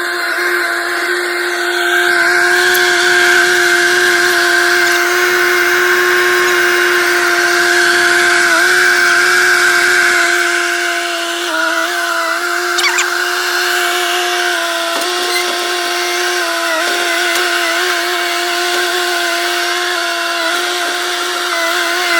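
Kubota 1000 mini skid steer running hard with a steady high whine, its pitch dipping briefly a few times as it takes load.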